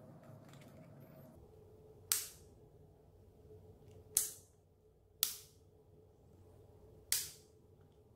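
Ignition key switch on a home-built electric scooter's handlebar clicking as the key is turned, five sharp snaps spaced one to two seconds apart, each dying away quickly, over a faint steady hum.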